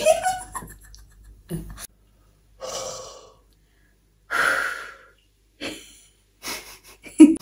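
Soft, breathy laughter in several short bursts, separated by silent gaps.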